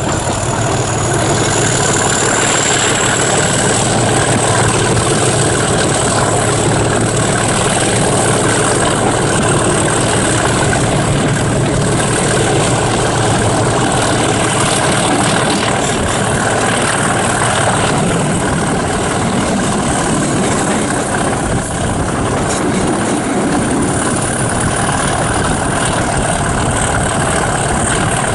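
Class 37 diesel locomotive D6948's English Electric V12 engine running under power at the head of the train, heard from an open carriage window with rushing air and wheel noise. A steady high whistle sits over the engine sound.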